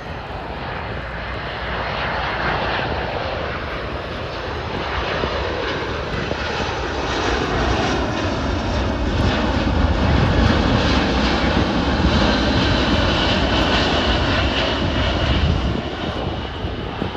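Jet noise of a C-17 Globemaster III's four Pratt & Whitney F117 turbofan engines on a low demonstration pass, with a whine that shifts in pitch. It swells to its loudest about ten seconds in and drops off shortly before the end.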